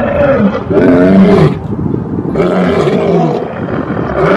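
Two male lions roaring together, a series of about three long roars, each about a second long with short pauses between.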